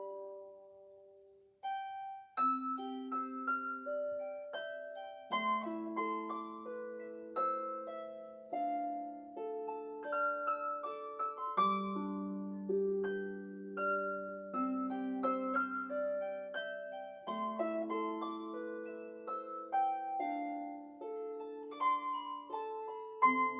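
Blevins 38-string harp played solo: plucked notes ringing over each other, a melody above sustained bass notes. The sound dies away to a brief pause about a second and a half in, then the playing resumes.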